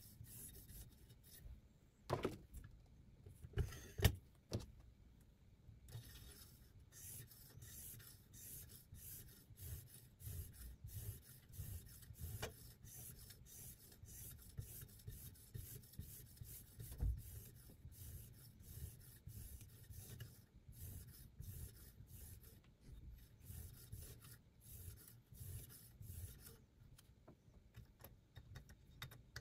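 Sharpening stone on the guide rod of a guided knife sharpener, drawn back and forth along a chef's knife edge: quiet, repeated rubbing strokes of stone on steel. A few louder knocks stand out, two of them in the first few seconds.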